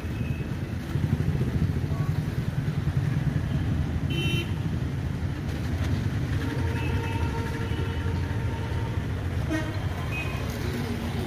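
Busy road traffic: motorcycles and other vehicles running past with a steady low rumble. Vehicle horns honk briefly about four seconds in, and again several times in the second half.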